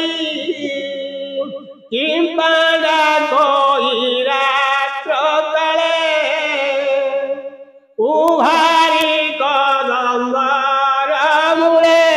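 Sung chanting of Odia Bhagavata verses in long melodic phrases, with short breaks about two and eight seconds in.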